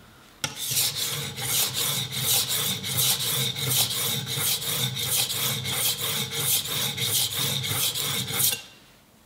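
Steel knife blade scraped back and forth across a wet diamond sharpening plate in quick, even strokes, about three a second, stopping abruptly near the end. The knife is being worked on its second side after a burr has been raised on the first, to take that burr off and even out the bevel.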